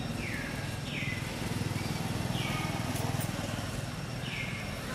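Infant long-tailed macaque crying: four thin, high calls, each falling in pitch, repeated every one to two seconds, over a low steady rumble.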